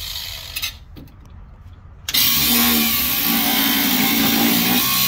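Cordless angle grinder cutting into rusted steel. It bites in about two seconds in and then runs loud and steady, a hum under a harsh hiss.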